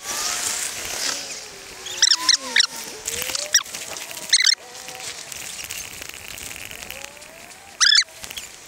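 Bicycle squeaking in short, high, loud squeals, a cluster about two to four seconds in and another near the end, over a steady rush of wind and tyres on wet pavement.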